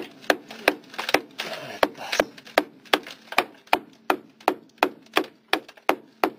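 Hand tool, most likely a hammer, striking the rusted sheet-metal floor underside of a MAN vehicle in a steady run of sharp knocks, about three a second. The floor metal is rotted through.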